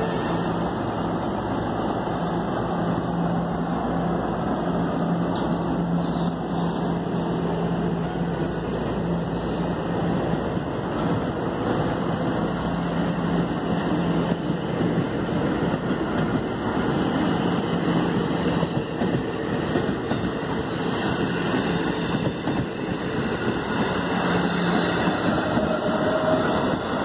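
NJ Transit bilevel passenger coaches rolling past along the platform: a steady rumble of wheels on rail, with a low hum that fades about two-thirds of the way through as the last cars and the cab car go by.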